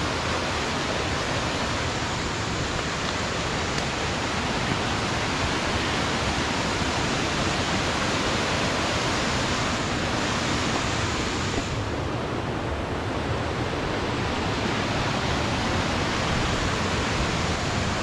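Waterfall cascading over rocks: a steady, even rush of water noise, dulling briefly in its upper range about twelve seconds in.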